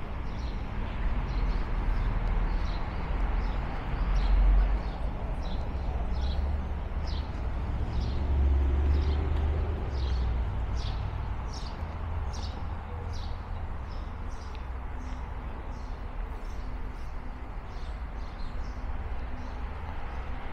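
A small bird chirping over and over, short high notes that sweep downward, about two a second, over a low rumble that swells a couple of times.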